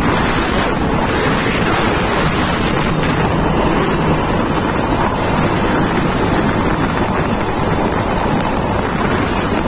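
Wind buffeting the microphone over the steady rumble of a convoy of tarp-covered light trucks driving past on the road.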